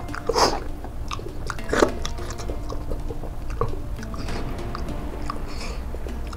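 Close-up chewing and mouth sounds of a person eating with his fingers from a plate, with two louder wet bursts near the start about a second and a half apart, then softer scattered smacks.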